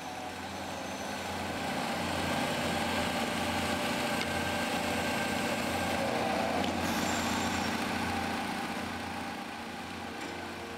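A steady mechanical hum with a rushing noise that builds over the first couple of seconds and eases off near the end.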